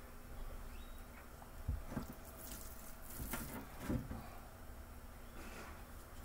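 Seasoned raw ribs being handled: soft, wet squishing as the rack is lifted off a metal sheet pan and set down into an electric pressure cooker's pot, with a few light bumps.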